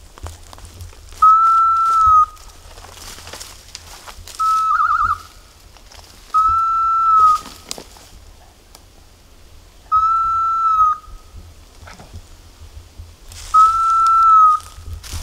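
Dog whistle blown in four long, single-pitched blasts of about a second each, at irregular gaps of three to four seconds, with one short trilling blast between them: a hunter signalling a setter in the field.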